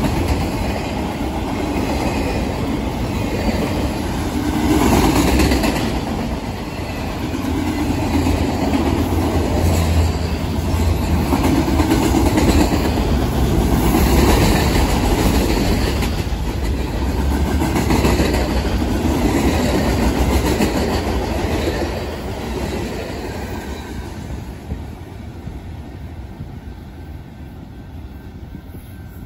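Freight cars of a long mixed train, autoracks and then centerbeam lumber flatcars, rolling past on steel wheels with a steady heavy rumble. The sound fades over the last several seconds as the end of the train passes and draws away.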